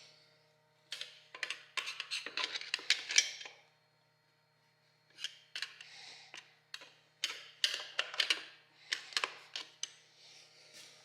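Hand tools clicking and scraping against the metal parts of an AMC TH400 automatic transmission as a snap ring is worked out of the clutch drum: two runs of quick metallic clicks with a short pause between them.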